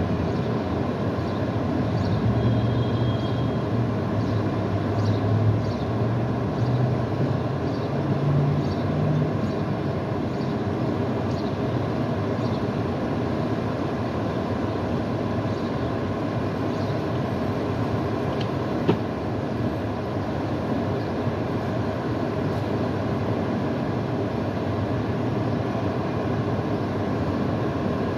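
Steady rumble of an engine running out of sight, its note rising in steps for several seconds from about two seconds in, then settling back to a steady run. A single short click comes about two-thirds of the way through.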